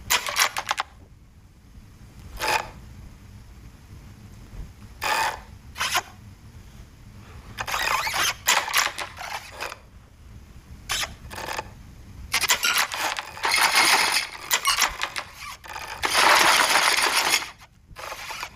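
Bubble wrap popping and crackling: a few single sharp pops at first, then bursts of dense crackling, the longest and loudest near the end.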